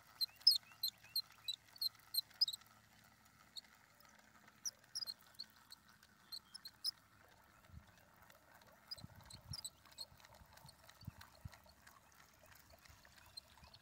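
Runs of short, high-pitched chirping calls from pond wildlife, about four a second, coming in several bursts, over a faint steady background hum. A few soft low knocks come in the second half.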